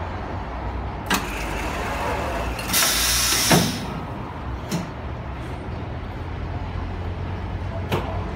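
High-frequency blister welding and cutting machine running a cycle over a steady low hum. A sharp click comes about a second in, then a loud hiss lasts about a second and ends in a knock as the press works, followed by two more clicks.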